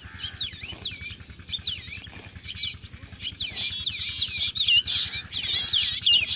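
Several birds chirping and whistling in quick, overlapping calls, busier and louder from about halfway through.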